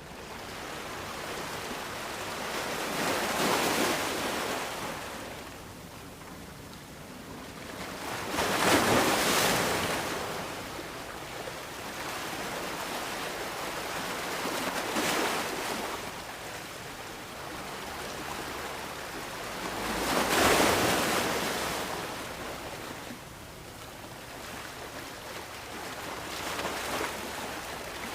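Gentle sea waves breaking and washing up a sandy beach: a steady hiss of surf that swells into a louder wash about every five or six seconds, then fades back.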